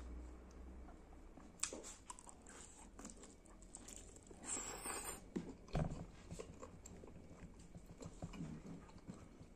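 Mouth and hand eating sounds of a person eating curried skin and rice by hand: wet chewing and lip smacks, with a louder noisy bite into a long piece of skin about four and a half seconds in.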